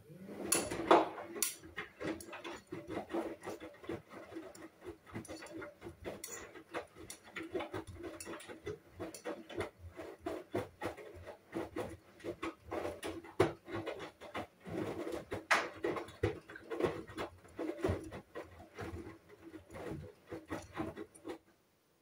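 Hoover front-loading washing machine's drum turning a wet wash load: a steady hum under irregular splashing and thuds of laundry tumbling in the drum. It starts at once and stops shortly before the end, when the drum comes to rest.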